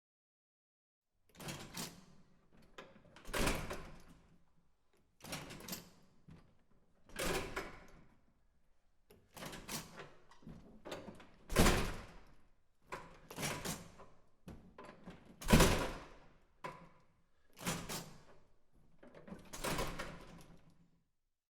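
A door opened and shut over and over, about ten separate knocks and bangs roughly every two seconds, the hardest shuts about halfway through.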